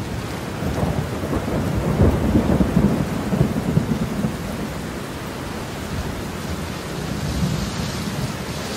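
Heavy rain pouring down, a dense steady hiss, with a low rumble that swells over the first couple of seconds and eases off after about four.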